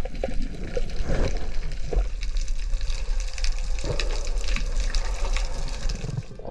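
Water heard through an underwater camera near the surface: sloshing and bubbling with a steady low rumble and many small crackles and clicks.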